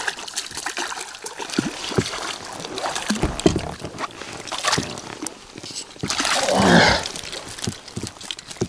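Water splashing beside a boat as a hooked chub is played at the surface: many small splashes and knocks, with one louder splash about six and a half seconds in.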